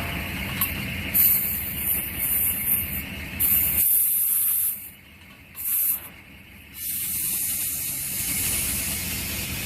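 Compressed air hissing in several bursts from an air line at a truck tire being mounted and aired up, with a couple of brief pauses past the middle.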